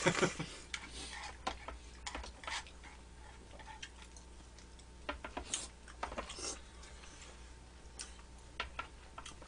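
Close-up eating sounds: a slurp of broth from a small dish at the start, then chewing and scattered clicks of chopsticks against the dishes.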